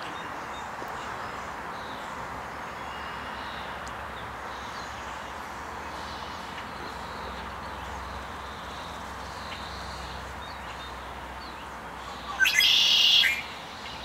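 Outdoor ambience: a steady hiss with faint, scattered bird chirps. Near the end, a loud bird call lasting about a second.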